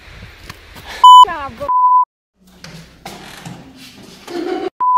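Censor bleeps: a steady, high-pitched beep tone cuts in three times, short and loudest about a second in, again just after, and once more at the very end. A quick falling tone follows the first bleep, and low muffled noise fills the gap before the last one.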